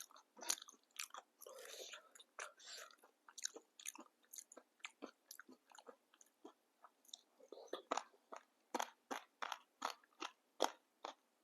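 Close-up chewing and crunching of papdi chaat, crisp fried papdi wafers with chutney, in irregular crackly bites. The crunches grow denser and louder in the second half.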